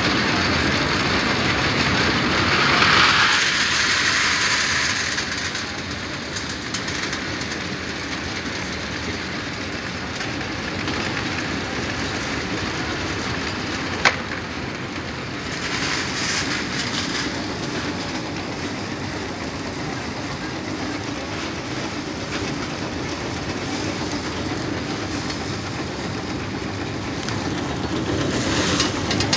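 Ball chocolate wrapping machine running, a steady mechanical clatter and rattle, with one sharp click about halfway through.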